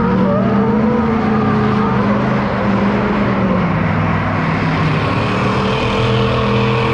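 A truck's engine held at high, steady revs with its tyres spinning in a smoky burnout, the engine note staying nearly level throughout.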